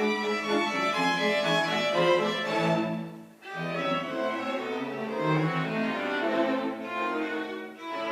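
String quartet of two violins, viola and cello playing bowed phrases. The music drops out briefly about three and a half seconds in, and dips again near the end.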